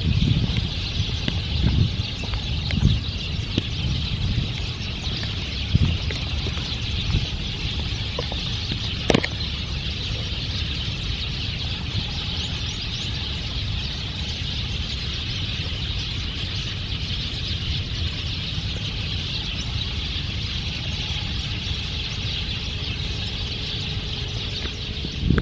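A huge chorus of small birds, a dense and continuous mass of overlapping chattering calls from a large flock, very loud on the spot.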